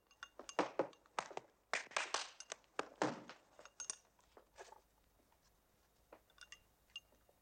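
Paper exam tickets shuffled and sorted by hand on a desk: a quick run of rustles and crinkles for the first few seconds, then only a few faint clicks near the end.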